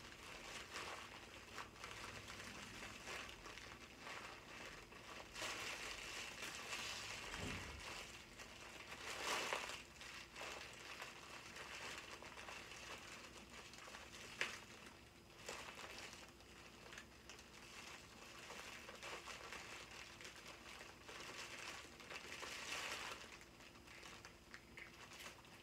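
Plastic wrapping of a small treat bag crinkling and rustling as it is handled and opened, with a few louder crackles now and then.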